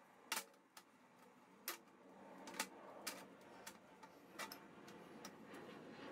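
Sharp, light clicks and knocks of steel square tubing and a magnetic welding square being set down and shifted on a steel table, about eight in all at irregular intervals.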